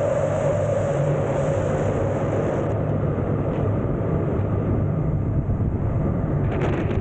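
Loud, steady rush of airflow over the camera's microphone in wingsuit flight, with a low rumble beneath it; the noise starts to change near the end.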